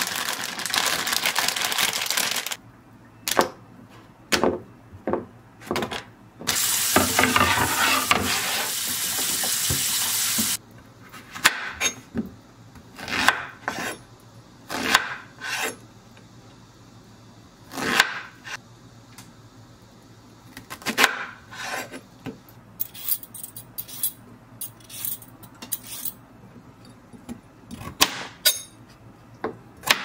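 Kitchen knife cutting zucchini and carrots on a plastic cutting board: irregular knocks of the blade against the board through the second half. Before that come two stretches of loud rustling or rushing noise, the first at the start and the second from about six to ten seconds in.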